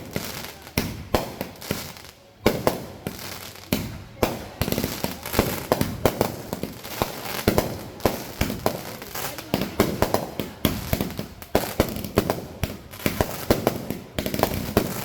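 Fireworks going off in rapid succession: sharp bangs and pops several times a second, with a short lull about two seconds in followed by a loud bang.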